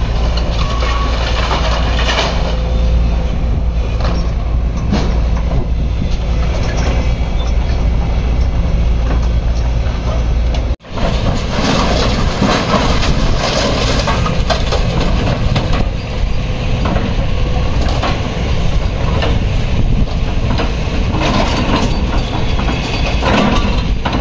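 Diesel engines of heavy scrap-handling machinery running, with scrap metal clattering and clanking as a lifting magnet and then an excavator bucket unload a trailer of burned RV scrap. The sound breaks off sharply for a moment about eleven seconds in, and the clatter is denser after it.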